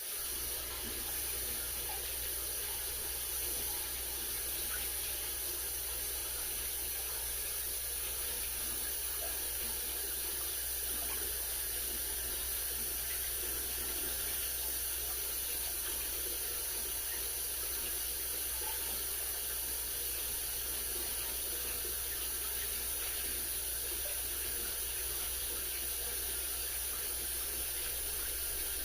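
Water in an aquarium running steadily, with a faint low hum underneath and no breaks or distinct events.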